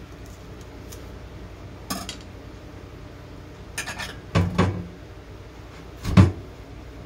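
Knife and dragon fruit knocking and clinking against a ceramic plate as the fruit is peeled by hand. There is one knock about two seconds in, a cluster of clinks around four to five seconds, and the loudest knock a little after six seconds.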